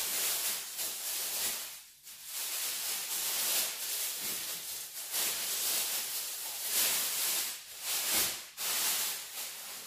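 Plastic wrapping crinkling and rustling as it is pulled off a padded face-cradle cushion, in uneven handfuls with brief pauses about two seconds in and again near the end.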